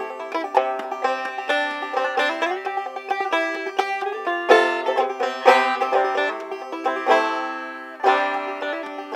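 Solo banjo played clawhammer style: quick plucked notes in a steady rhythm, each left ringing.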